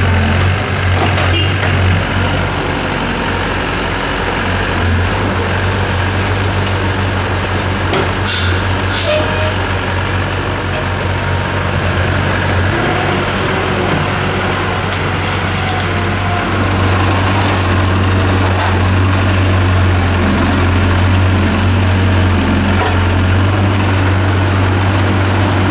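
Diesel engines of a Doosan DX55W wheeled excavator and a loaded dump truck running steadily, with a deep hum, while the excavator works. A few short hisses come about eight to ten seconds in.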